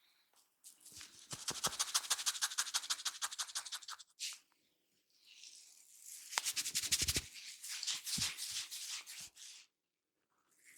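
Brisk scratching and rubbing of hair on the scalp during a head massage, in quick rhythmic strokes of about seven or eight a second. It comes in two runs with a short break a little before the middle.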